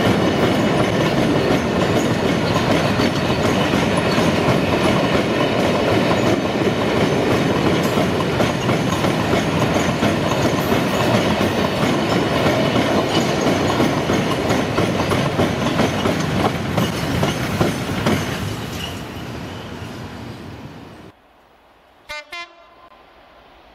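Freight train wagons rolling past with a steady, loud wheel and rail noise that fades over the last few seconds before cutting off. Two brief pitched sounds follow near the end.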